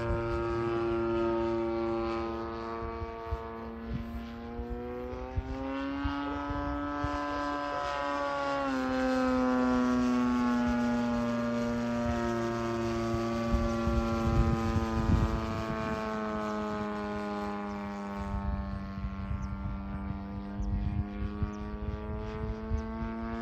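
Large RC Slick 540 aerobatic plane flying overhead on its DLE 55 single-cylinder two-stroke gas engine, a steady buzzing drone. The pitch climbs about five seconds in, drops sharply a few seconds later, then holds steady.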